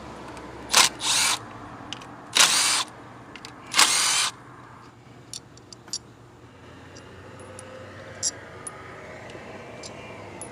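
Cordless power driver with a 10mm socket spinning out an ignition coil's hold-down bolt, in four short bursts over the first four seconds, followed by a few faint clicks.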